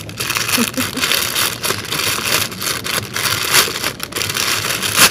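Thin black plastic shipping pouch crinkling and rustling as it is handled and pulled open by hand, in loud, irregular crackles.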